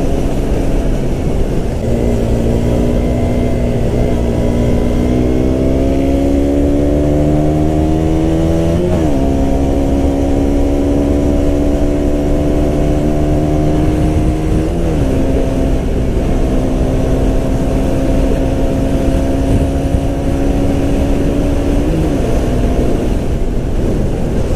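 2017 KTM Duke 125's single-cylinder four-stroke engine on its stock exhaust, pulling under way. The engine note climbs steadily for several seconds, then dips briefly three times and settles back to a steady pitch.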